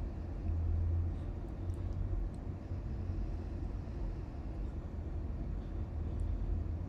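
Steady low rumble with a few faint high ticks.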